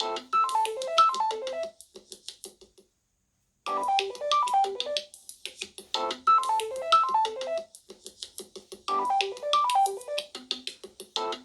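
A Samsung Galaxy A71 ringtone: a short melody of quick, separate notes, looped over and over, with a brief break about three seconds in.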